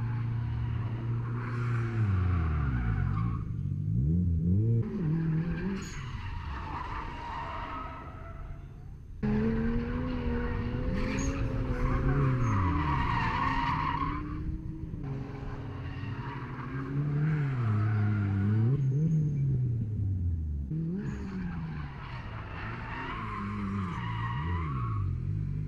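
Drift car engine revving up and down in long swoops as the car slides through a corner, with tyre squeal from the spinning, skidding rear tyres. The sound changes abruptly several times.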